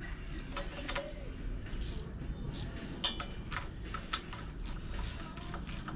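Scattered, irregular light clicks and taps of hand and tool work on a dirt-bike wheel during a tire change.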